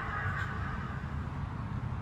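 A steady low droning hum, with faint high, even tones fading out in the first half second: the unexplained sound in the sky that the recordist is asking about.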